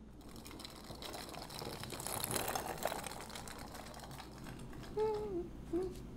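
A crackly hiss swells to a peak and fades, then a voice starts humming a wavering, sliding tune about five seconds in; the humming is the loudest part.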